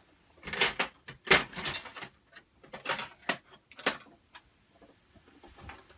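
Handling noise: a string of short clicks, clacks and rustles, bunched between about half a second and four seconds in, with a fainter one near the end.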